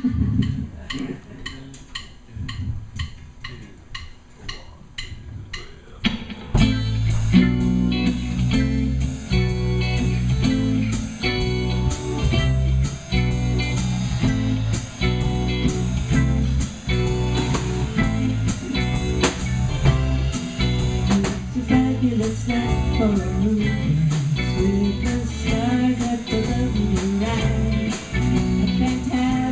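Live band music from a drum kit, keyboard and guitar. It opens with light, evenly spaced cymbal ticks about two a second, then the full band with a strong bass line comes in suddenly about six and a half seconds in and plays on at a steady, swinging tempo.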